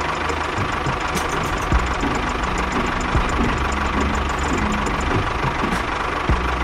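Tractor engine running steadily at idle with a knocking chug.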